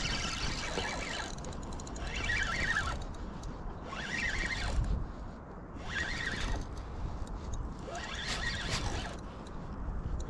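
Fishing reel being cranked in short bursts of about a second, roughly every two seconds: a stop-and-go lure retrieve. A steady low rumble of wind or water runs underneath.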